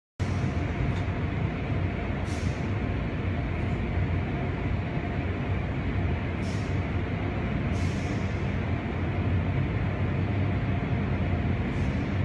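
Steady low machinery rumble with a faint steady tone, broken four times by a short hiss.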